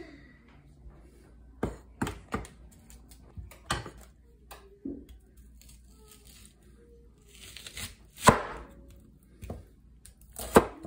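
Chef's knife cutting a red onion on a plastic cutting board: irregular sharp knocks of the blade striking the board, the loudest about eight seconds in.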